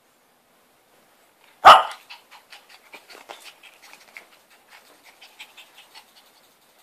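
Shih Tzu puppy begging for a treat: one sharp bark about a second and a half in, then a few seconds of quick, soft panting and small noises.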